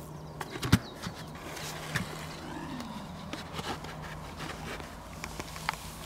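Handling noises of a clear plastic bucket being set upside down over a firecracker on sand: one sharp knock under a second in, then scattered light clicks and scrapes. A steady low hum sits underneath.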